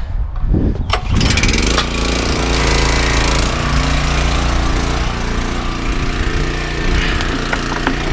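Gas pressure washer's small engine starting about a second in, with the spray-gun trigger held open, then running steadily.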